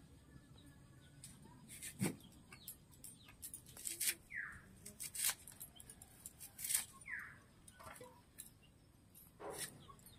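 Vegetables (pointed gourd and onion) being sliced on a bonti, a curved floor-mounted blade, giving crisp cuts every second or two. A bird gives a short falling call three times.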